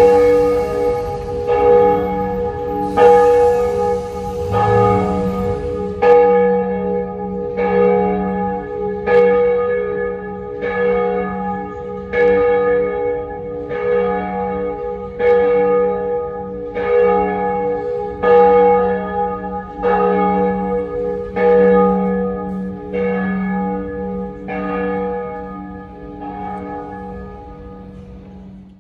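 A church bell tolling at an even pace, one stroke about every second and a half, each ringing on under the next.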